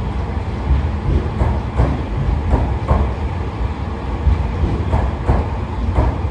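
Fukuoka City Subway 4000-series cars rolling past, hauled unpowered as a freight delivery: a low rumble with wheel clacks over the rail joints every second or so.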